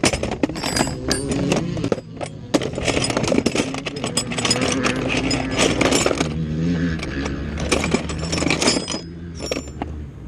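Dense, irregular metallic clicks and clinks of tools and parts being handled on a motocross bike, over the steady drone of motorcycle engines.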